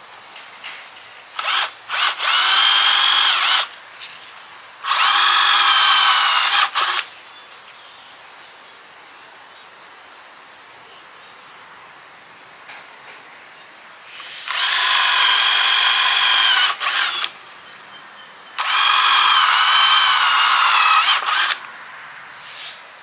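Power drill boring pilot holes for nails into a hard wooden plank, run four times for two to three seconds each. The whine holds steady, and in the last run it wavers as the bit works into the wood.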